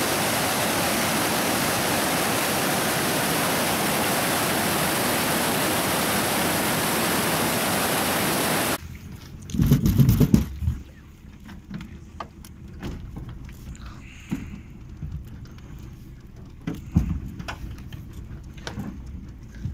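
A mountain stream rushing and splashing in white cascades over boulders, a steady loud roar that cuts off abruptly about nine seconds in. After it comes a much quieter stretch: a heavy low thump, then scattered knocks and bumps as an inflatable boat pushes through a jam of floating logs.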